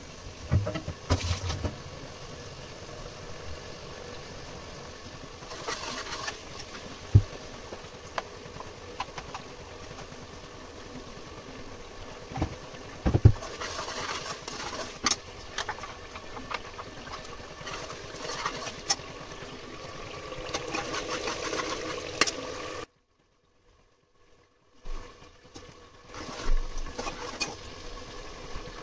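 A metal spoon stirring and clinking against an open pressure cooker pot, with scattered sharp clinks and scrapes, over a steady kitchen hum. The sound drops out for about two seconds near the end.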